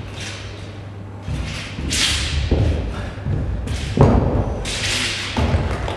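Wushu broadsword routine on a competition carpet: several dull thumps of feet and body landing on the mat, the loudest about four seconds in, mixed with swishes of the broadsword cutting through the air, over a steady low hum.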